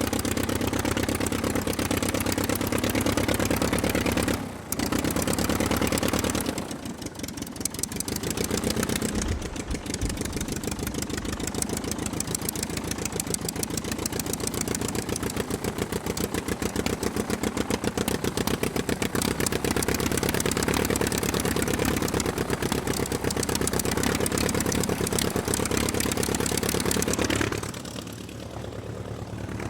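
Sound effect of a WW2 piston aircraft engine running steadily with a fast, even pulse. It drops away briefly a few times, most clearly near the end.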